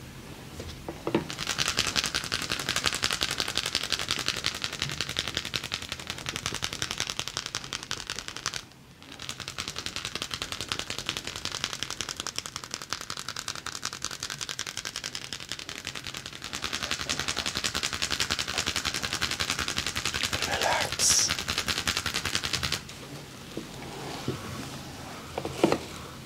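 Rapid percussive massage strokes on the body: a fast, steady, machine-gun-like rattle of taps. It breaks off briefly about a third of the way in, resumes, and stops a few seconds before the end.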